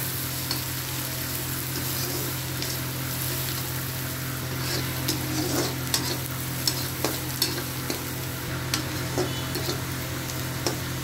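Chopped onions sizzling in hot oil in a kadai as a spatula stirs and fries them, with frequent short scrapes and taps of the spatula on the pan over a steady hiss. A steady low hum runs underneath.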